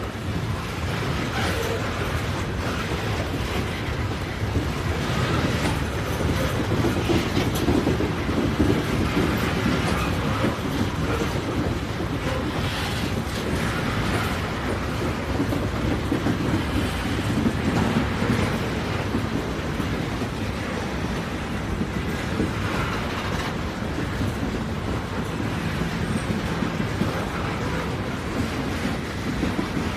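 A train running along the track: a steady rumble of wheels on rail that swells and eases a little, with no whistle.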